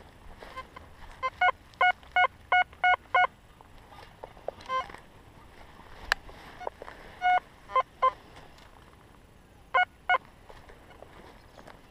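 XP Deus metal detector giving short electronic target beeps as the coil is swept: a quick run of about six beeps early on, then scattered single and paired beeps, some lower in pitch than others.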